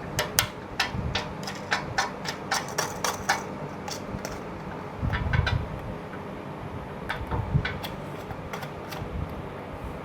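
Small metal mounting hardware (fog light brackets, bolts and washers) clicking and clinking in irregular taps as it is handled and fitted, with a brief low rumble about five seconds in.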